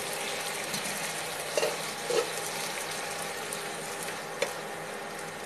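Black chickpeas in a spiced gravy sizzling steadily in a nonstick frying pan, stirred with a silicone spatula. A few soft knocks come as the spatula moves through them.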